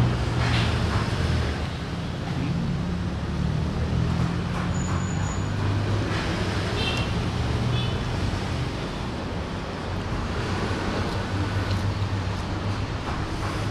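Steady road traffic noise: passing vehicle engines giving a continuous low hum, with a couple of brief high tones near the middle.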